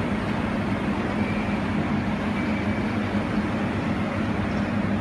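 Powered-up fiber laser welding machine standing ready, its cooling fans giving a steady hum with a low tone.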